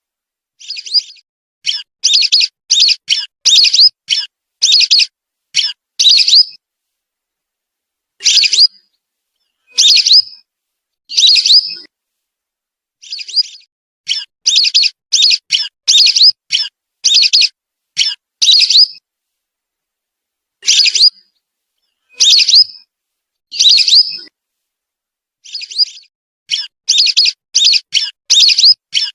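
Whistling duck (belibis) calls from a lure recording: short high whistled notes, some in quick runs of four to six, others single, with gaps of a second or two of silence between them.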